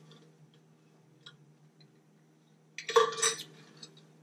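Dishes and cutlery clinking during eating: a few faint clicks, then one sharp, louder clatter about three seconds in. A steady low hum runs underneath.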